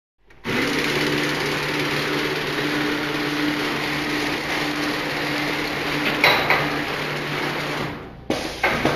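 Plastic coffee stirrer stick bundling machine running, cutting in sharply about half a second in: a steady mechanical hum with a constant tone under a dense clatter of moving parts, with two sharp clacks about six seconds in.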